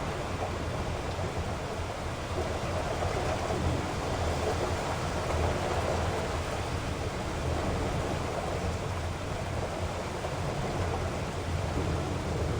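Heavy rain falling as a steady, dense hiss, with a low rumble swelling and fading in the middle.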